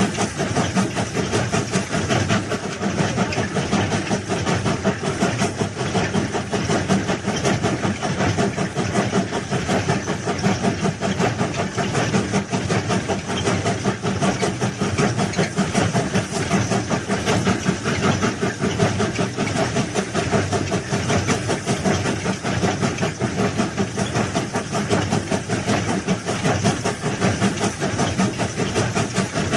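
A large engine running steadily, with a fast, even pulse and a hiss on top, unchanged throughout.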